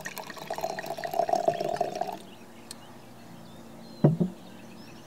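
Red wine (Merlot) poured from a bottle into a wine glass, splashing and filling for about two seconds, then a single dull knock about four seconds in.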